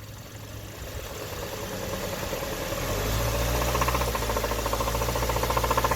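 The 2013 Hyundai Sonata's 2.4-litre Theta four-cylinder engine is being revved. It rises over the first three seconds, then holds, with a fast rhythmic knock throughout. This is rod knock from an engine that has burned off nearly all its oil.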